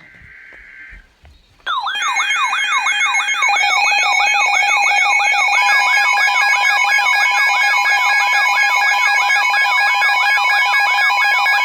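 Weather alert receivers going off for a new severe thunderstorm warning: several alarms sounding at once, a warbling sweep about three times a second layered over steady beeping tones. It starts sharply about two seconds in and grows louder a second or so later; near the end the sweep stops and a steady single tone carries on.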